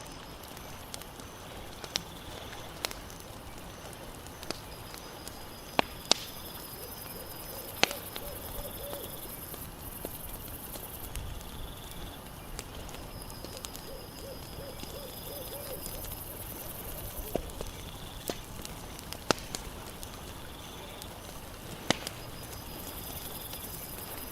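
Campfire crackling: irregular sharp pops over a steady hiss, with night insects trilling high in the background and a short pulsing animal call twice.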